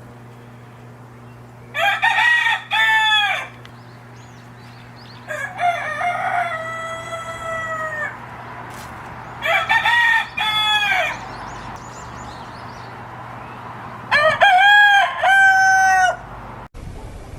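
A rooster crowing four times, a few seconds apart; the second crow ends in a long drawn-out note.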